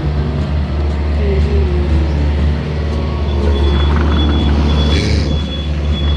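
Diesel engine of heavy earthmoving machinery, likely an excavator, running steadily under load. About halfway through a high travel or reversing alarm starts beeping, about two beeps a second.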